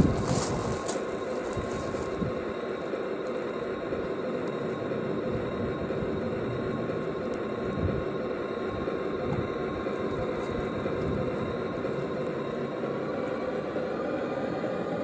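Sound unit of an Aristocraft G-scale Class 66 model diesel locomotive playing a steady diesel engine sound through its small on-board speaker as the battery-powered model runs along the track. The engine note edges up in pitch near the end.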